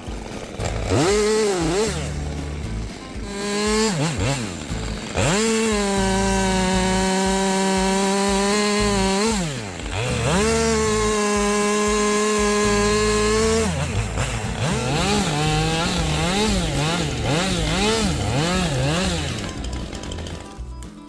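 Two-stroke chainsaw bucking firewood. It revs, then runs held at full throttle through two long cuts of a few seconds each, with quick throttle blips between and after them before it drops off near the end.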